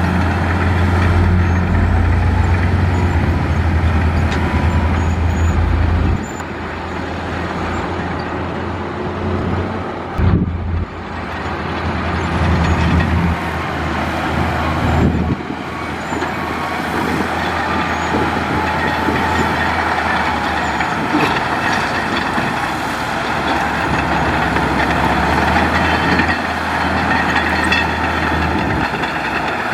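Diesel engines of heavy earthmoving machinery running on a road-building site. The low engine hum is strong at first and drops noticeably about six seconds in, with a brief break near the middle.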